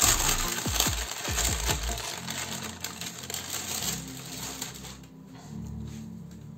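Baking paper being peeled off a freshly baked sponge sheet, crackling and rustling in quick little strikes, fading out about four seconds in as the paper comes away, leaving soft background music.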